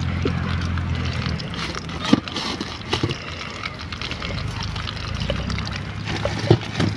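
A few sharp crunches and clicks from crisp fried pastries being handled on a steel plate and bitten, over a steady low hum that fades about a second in and comes back near the end.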